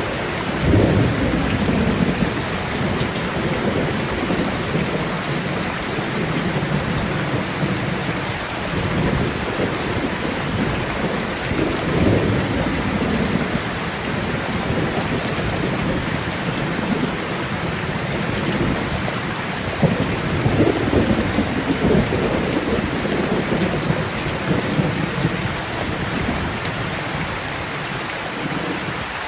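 Steady rain falling hard, with low thunder rumbling under it and swelling now and then, near the start, about twelve seconds in and about twenty seconds in.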